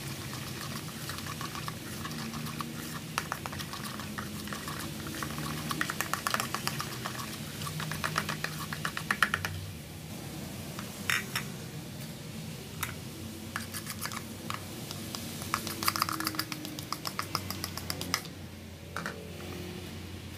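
Metal spoon stirring a flour batter in a plastic bowl, clinking and scraping against the bowl in quick runs of clicks. Near the end a spoon scrapes the batter through a wire-mesh sieve.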